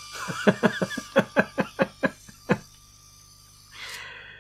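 A man laughing: a run of about a dozen quick "ha" pulses over two and a half seconds, fading out, then a short soft hiss near the end.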